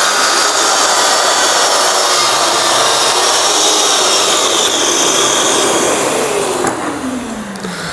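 Festool Kapex KS 60 sliding compound mitre saw running at full speed and cutting through a softwood board. Near the end the motor winds down, its pitch falling steadily.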